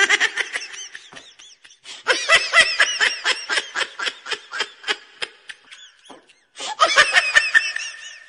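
Someone laughing hard in rapid, repeated 'ha' bursts, in three bouts with short breaks about two seconds and about six and a half seconds in.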